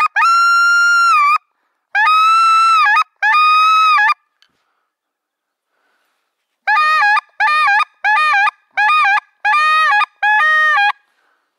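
Loud goose honking, one voice at a time: three long held honks, a pause of a couple of seconds, then six shorter honks in quick succession.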